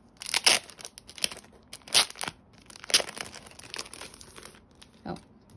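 Plastic packaging crinkling and tearing as it is pulled open, in a few sharp rustling bursts about a second apart that die away near the end.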